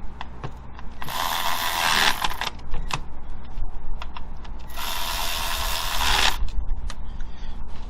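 Hand ratchet clicking while the ignition coil bolts are tightened down, in two runs of about a second and a half each with scattered clicks and knocks of tools and parts between them.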